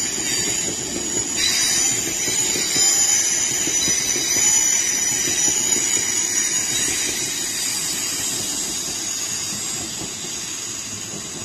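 London Northwestern Railway Class 350 electric multiple unit running past along the platform, a steady rumble of wheels on rails with a thin high-pitched wheel squeal over it, growing quieter over the last few seconds.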